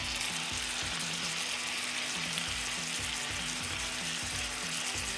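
Chicken pieces in a thick tomato-and-spice masala sizzling steadily in a cast-iron skillet.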